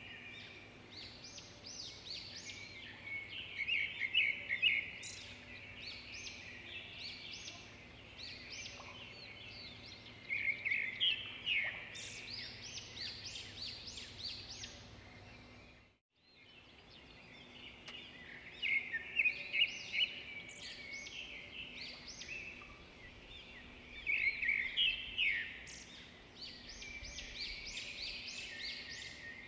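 Birds chirping in spells of quick, high calls over a faint steady hum. The sound drops out briefly about halfway through.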